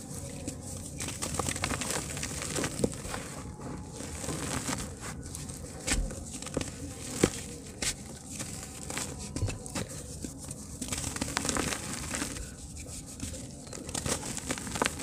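Hands squeezing and crumbling lumps of soft dirt, giving irregular crunches and cracks with the patter of crumbs falling onto a heap of dirt.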